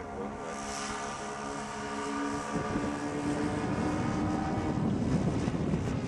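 Giant-scale radio-controlled C-130 Hercules model flying overhead, its propeller engines giving a steady droning hum. A stronger, steadier tone joins about two and a half seconds in, and the sound grows louder and rougher toward the end.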